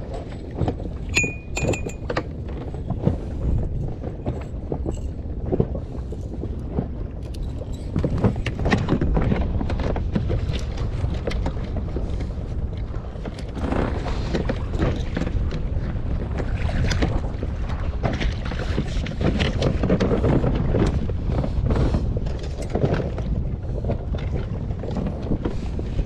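Wind buffeting the microphone, with water slapping against the hull of a small inflatable boat in uneven knocks and gusts.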